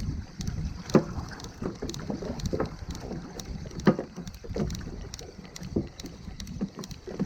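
Irregular knocks and clicks of handling on a small fishing boat, two sharp loud ones about a second and four seconds in, over a low rumble of wind and water.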